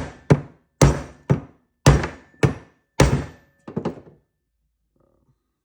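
Hammer striking a socket used as a bearing driver, seating a new bearing on a differential shaft by its inner race: about six sharp blows, roughly two a second, then a few lighter taps about four seconds in.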